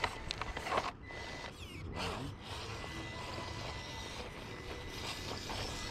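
Traxxas TRX-4M RC rock crawler working over rock: its small electric motor and geared drivetrain whirring with a thin steady whine, tires scrabbling and grinding on the stone, and a few sharp clicks in the first second.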